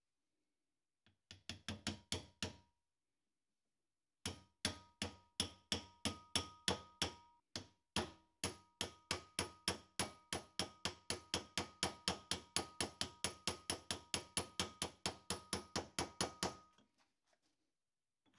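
Light, quick hammer taps driving a ball bearing onto a Bosch alternator's rotor shaft, pressed on by its inner race. A short run of taps comes about a second in, then after a pause a long, even run of about four taps a second with a faint metallic ring, stopping near the end.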